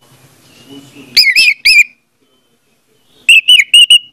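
Orange-headed thrush singing: two short, loud bursts of quick whistled notes, one about a second in and one near the end.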